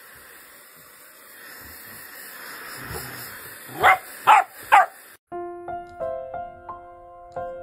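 Golden retriever puppy giving three short barks in quick succession about four seconds in. A second later, soft piano music comes in.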